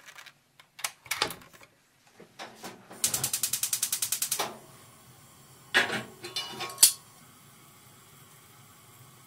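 A gas stove burner's igniter ticking rapidly, about ten clicks a second for a second and a half, until the burner lights and settles into a faint steady hiss. A few sharp metal clanks follow as a cast iron pan is picked up with locking pliers.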